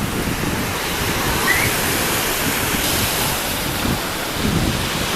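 Surf washing on a beach, with wind rumbling on the microphone.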